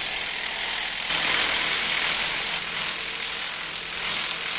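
Impact wrench running continuously on a 32 mm front axle nut, undoing it. A steady, noisy run that changes slightly about two and a half seconds in.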